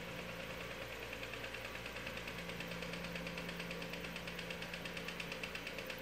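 Powered bead roller running forward at a slow steady speed, its motor humming with a rapid, even ticking as a sheet-steel panel feeds between the step dies to roll in a stiffening step.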